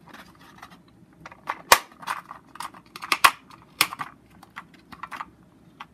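Hinged plastic cassette case being handled and opened: a string of sharp plastic clicks and clacks, the loudest a little under two seconds in and two more around three to four seconds in.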